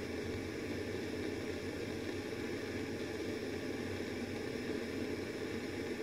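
Propane hand torch burning with a steady rushing hiss, its flame held on an aluminum RV water-heater tank to heat it for brazing with an aluminum rod.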